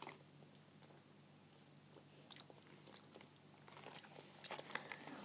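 Near silence: quiet room tone with a few faint small clicks and rustles.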